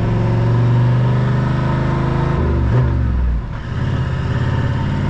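Toyota LandCruiser Troop Carrier engine running as it drives slowly along a sand beach, heard from inside the cab. The engine note dips and changes briefly about halfway through, then runs steadily again.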